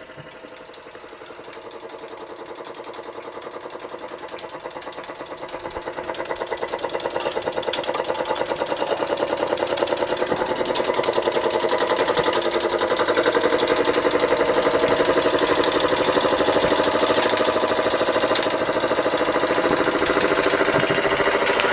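Albury Manor Mark IV model steam engine's single oscillating cylinder running, a rapid, even chuffing beat that grows steadily louder over the first dozen seconds and then holds steady.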